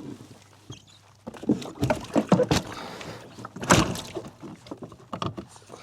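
Irregular clunks and knocks on a plastic fishing kayak's hull and pedal-drive fittings as gear is handled, the loudest about two-thirds of the way through.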